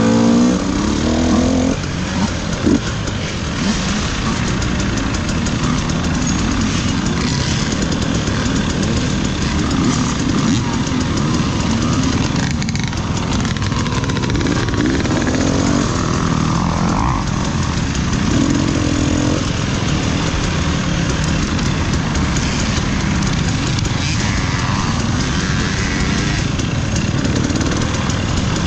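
Dirt bike engines running close by, the revs rising and falling unevenly as the bikes pick their way along a tight trail.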